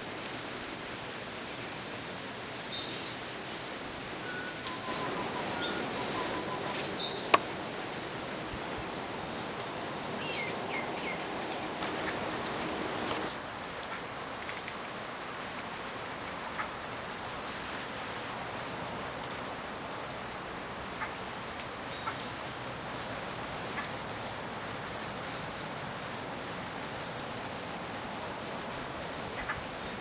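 Steady, high-pitched drone of insects, stepping up slightly in pitch and loudness about twelve seconds in. A few faint bird notes and a single sharp click come in the first part.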